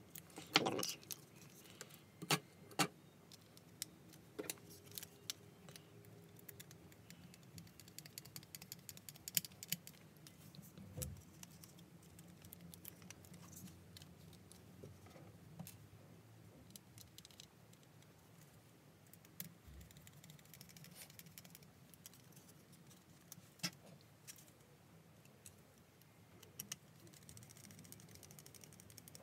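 Small plastic parts of a handheld's case and display frame being handled and fitted together: scattered light clicks and knocks, thickest in the first few seconds, over a faint steady low hum.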